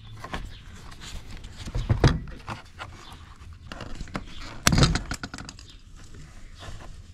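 Hands working a car door's lock mechanism and its release cable: irregular clicks, knocks and rustling of plastic and metal parts, with louder knocks about two seconds and five seconds in.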